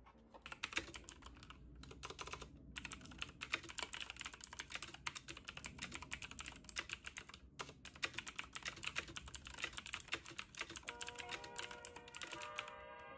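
Fast typing on a Razer BlackWidow X tenkeyless mechanical keyboard with Razer Green clicky switches: a dense run of sharp clicks, broken by a few brief pauses.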